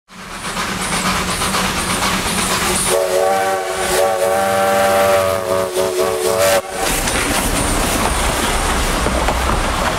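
Freight train rumbling past as a diesel locomotive's multi-note air horn sounds a long chord about three seconds in, then a few short blasts. The horn breaks off suddenly near seven seconds, leaving the steady rumble of the train.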